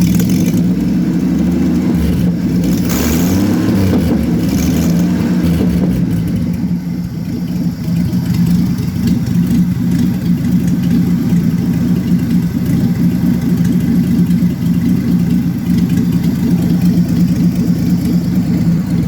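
1966 Chevrolet Impala's 250 cubic inch inline-six engine idling roughly, cause not known to the owner, with a brief rise and fall in revs about three seconds in.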